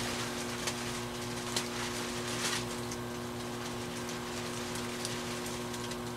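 Skutt Prodigy electric potter's wheel running with a steady motor hum, under a soft wet hiss of fingers shaping spinning porcelain clay, with a few faint clicks.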